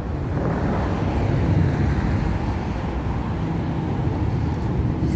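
Steady low rumble of roadside background noise, with no single event standing out.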